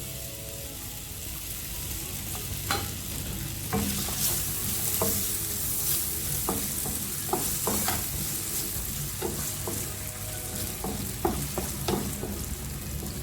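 Diced potato sizzling in hot olive oil in a frying pan while being stirred, with scattered clicks and scrapes of the spatula against the pan.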